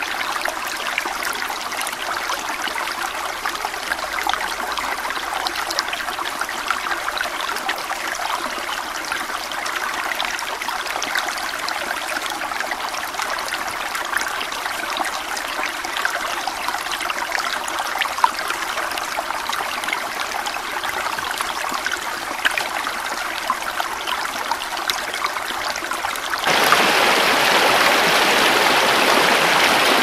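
Steady rush of water over rocks, a stream or small waterfall, which turns suddenly louder and fuller about 26 seconds in.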